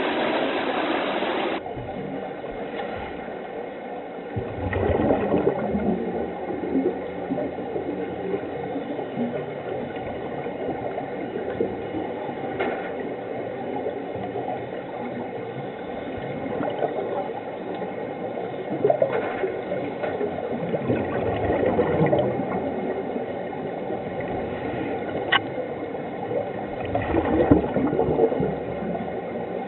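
Underwater sound in a pool: scuba regulator exhaust bubbles gurgling out in irregular surges a few seconds apart, over a steady water hiss, with the loudest surge near the end.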